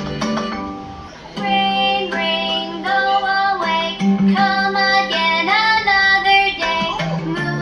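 A children's song: a child-like voice sings the melody over a light plucked-string accompaniment. The singing comes in about a second and a half in, after a short instrumental bit.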